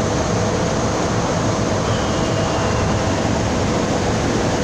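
Wood CNC router machine running with a steady, loud mechanical whir and hiss, with a faint high whine briefly about two seconds in.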